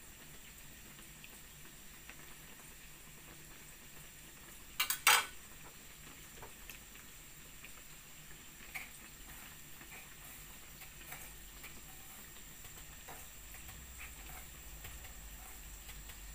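Hot oil in a wok sizzling steadily around a breaded ice-cream ball as it deep-fries, with scattered small pops and crackles. A brief, sharp clatter of a metal utensil against the wok about five seconds in is the loudest sound.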